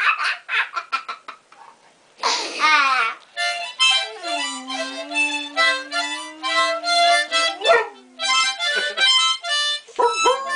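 Harmonica playing short choppy chords, then long held notes, while boxer dogs howl along; there is a brief pause about two seconds in.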